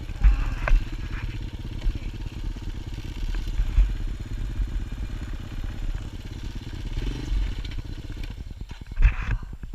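An ATV engine running, with a few heavy thumps and knocks from the ride. Near the end it settles to a slower, even beat.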